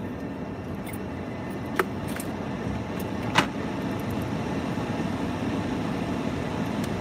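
Steady low rumble of a car sitting idling, heard from inside its cabin, with two sharp clicks about two seconds in and a second and a half later, the second the louder.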